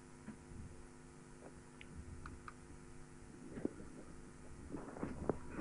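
Quiet, steady electrical hum from the microphone and sound system, with a few faint scattered clicks and small handling knocks. The noise rises slightly near the end.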